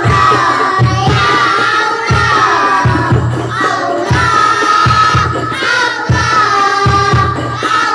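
A children's rebana ensemble: young voices singing a melody together into microphones over hand-struck rebana frame drums and a large bass drum, with a low drum stroke about once a second.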